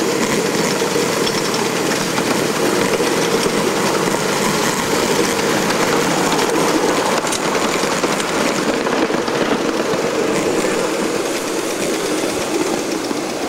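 Ride-on live steam Shay locomotive and its riding cars running along a miniature railway track: a steady mechanical running noise of the engine and wheels on the rails.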